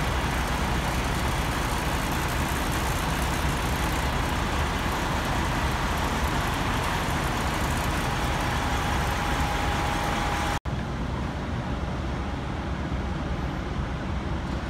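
Steady rumble and hiss of parked semi trucks idling, with a faint steady whine for a couple of seconds past the middle. A brief dropout about two-thirds through, after which the noise carries on with less hiss.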